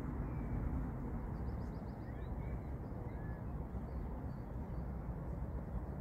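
Outdoor ambience: a steady low rush of wind or distant traffic, with small birds giving a few faint chirps and one short rapid trill in the first half.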